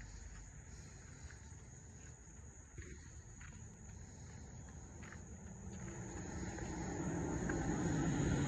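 Steady high-pitched insect buzzing over a low outdoor rumble, with a road vehicle approaching and growing steadily louder over the last three seconds or so.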